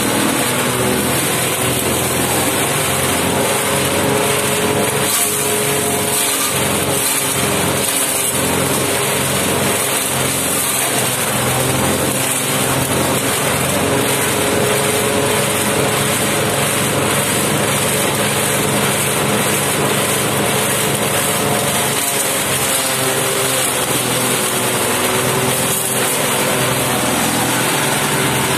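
Organic waste shredder running steadily, its engine-like note drifting slightly up and down in pitch.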